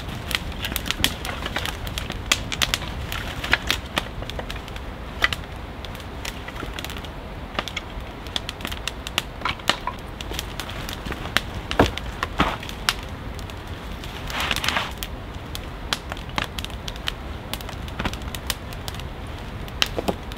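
Open wood campfire crackling, with irregular sharp pops and snaps, and a brief louder rustle about two-thirds of the way through.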